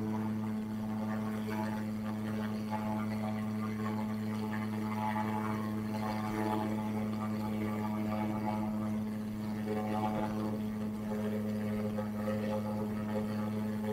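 A steady low drone held at one constant pitch with overtones, unchanging throughout, with a faint fluttering noise over it.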